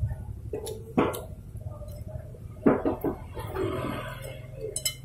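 Faint mouth and breathing sounds of a man eating spicy food, with two short sharp sounds, one about a second in and one past the middle.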